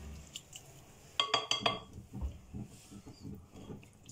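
A quick run of four or five ringing clinks on a glass mixing bowl about a second in, amid soft wet handling of chicken pieces being worked by hand in a thick yogurt marinade.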